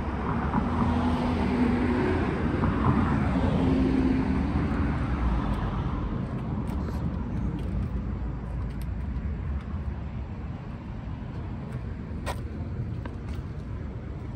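A motor vehicle engine running, louder for the first few seconds and then fading away, with a single sharp click near the end.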